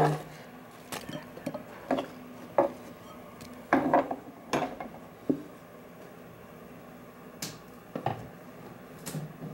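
Irregular sharp knocks and clicks as chopped apple pieces and a knife are handled on a cutting board and moved into a glass bowl, with a quieter gap between the knocks about two thirds of the way through.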